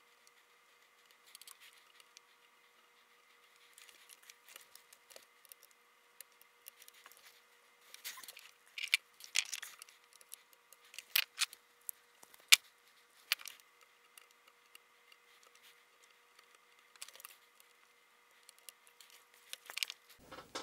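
Scattered light clicks and taps of a soldering iron and solder braid being worked against the joints of a circuit board while desoldering capacitor leads. The clicks are thickest in the middle stretch, with one sharp click a little past halfway, over a faint steady whine.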